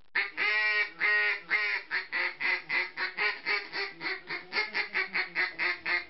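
Field-style mallard duck call blown by hand: three drawn-out quacks, then a steady run of quicker, shorter quacks at about three or four a second. The call is loud and high-toned.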